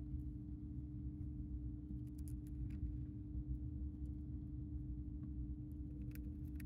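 A dwarf hamster nibbling dry food from a ceramic bowl, with a few faint sharp crunching clicks about two seconds in and again near the end, over a steady low room hum.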